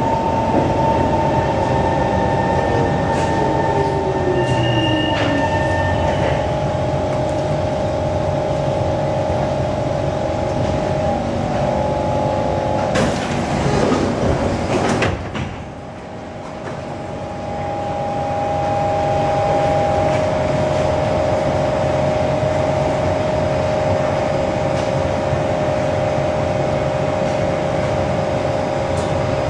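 SMRT C151 metro train braking into a station, its motor whine falling in pitch over the first few seconds as it slows. About halfway through comes a loud rushing burst as the sliding doors open, then the stopped train's equipment hums steadily.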